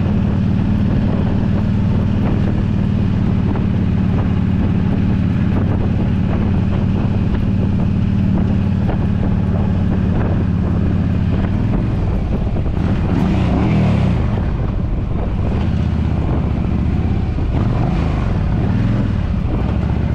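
Yamaha V Star 1300 Deluxe's V-twin engine running at a steady pace, with wind rushing over the microphone. About twelve seconds in, the engine note starts to rise and fall repeatedly.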